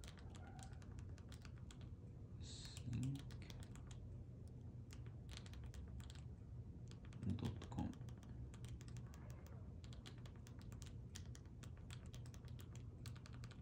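TV remote control buttons clicking in quick, irregular presses, several a second, as a cursor is stepped key by key across an on-screen keyboard.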